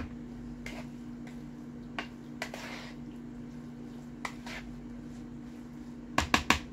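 Spoon clicking and scraping against a pot as a quinoa salad is stirred and tossed, with a quick run of sharper taps near the end, over a steady low hum.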